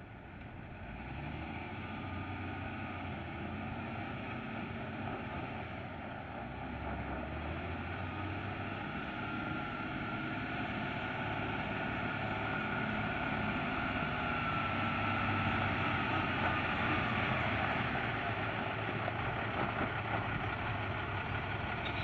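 1993 Volvo Autocar water truck's diesel engine running as the truck drives in at low speed, growing steadily louder as it approaches.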